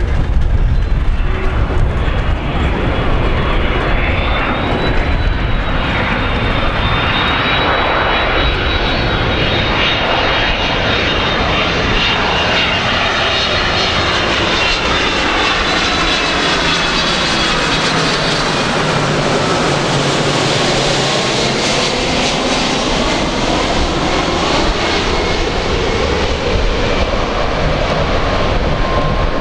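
The twin jet engines of a Boeing 767-300 airliner passing low overhead on landing approach: a loud, steady jet noise with a high whine that slowly drops in pitch as the plane goes over, the tone sweeping and shifting throughout.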